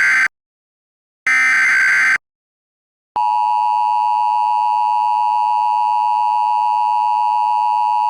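Emergency Alert System header data bursts: one harsh, buzzy burst ends just after the start and another follows about a second later, each under a second long. After a second of silence, the steady two-tone EAS attention signal sounds for about five seconds.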